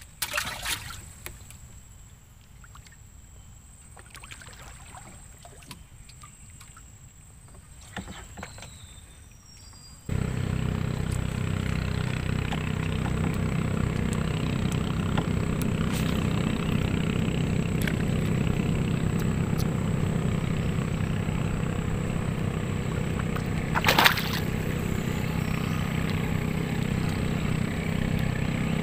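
A few light knocks over quiet water for the first ten seconds, then a small boat engine comes in abruptly and runs steadily at an even speed, with one sharp knock near the end.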